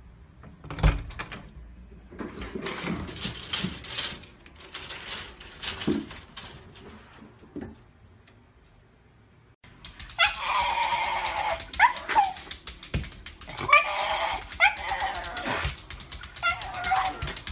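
A sharp knock about a second in, then scattered clicking and rattling. From about ten seconds in, a Shiba Inu vocalising in a string of high, wavering calls.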